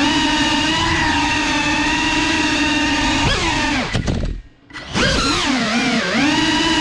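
Brushless motors and propellers of a 5-inch Geprc FPV quadcopter whining at a steady pitch. A little over three seconds in, the pitch drops and the sound nearly cuts out for about half a second. The motors then spin back up, the pitch dipping and rising before it levels off.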